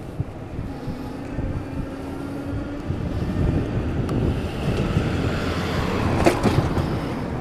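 Wind rushing over the microphone and road noise from a moving electric bicycle, with traffic noise building to its loudest a little past halfway through.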